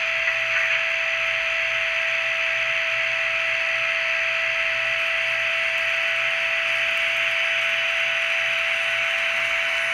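Märklin Krokodil model locomotive's sound decoder playing a steady electric running hum with a constant whine through the model's small speaker.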